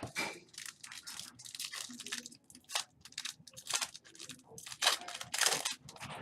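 Foil trading-card pack wrappers being torn open and crinkled: a run of short rustling tears, the longest and loudest about five seconds in.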